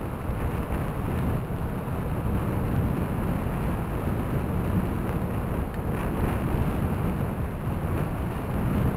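Steady rumble of wind on the microphone of a bike-mounted camera while riding, over the crunch of bicycle tyres rolling on a gravel trail, with a few faint ticks about six seconds in.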